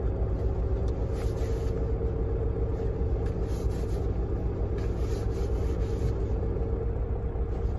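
Semi-truck diesel engine idling steadily, a low rumble with a constant hum, heard inside the cab. Faint rubbing of a tissue being wiped over a passport.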